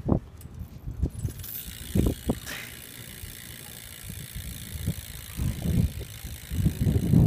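Rear Odyssey freewheel hub of a BMX bike ticking as the rear wheel spins freely, a steady high buzz of clicks that starts about a second in, with a few low thumps.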